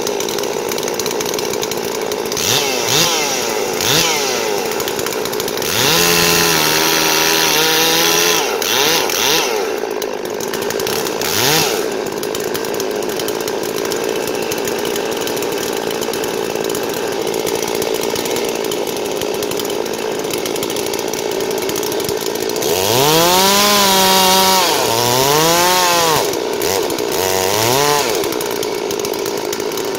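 Two two-stroke Farmertec Holzfforma chainsaws, a G660 and a G444, running together and cutting into a hardwood log. Several times the throttle is opened up to a high scream and let back down, most strongly about six seconds in and again near the end.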